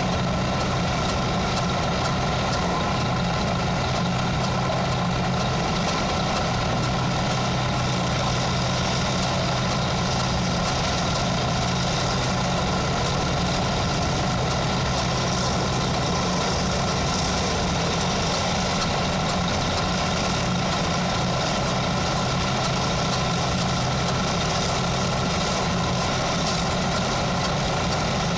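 An engine running steadily at idle, with an even, unchanging drone.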